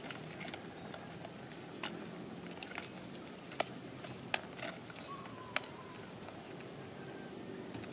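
Quiet outdoor ambience: a steady faint hiss with a handful of sharp, separate clicks and snaps scattered through the middle, and a brief faint high chirp about halfway through.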